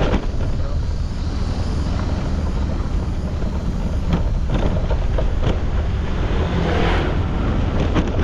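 Wind buffeting the microphone of a moving scooter, a steady heavy rumble over the scooter's engine and road noise, with a few light knocks.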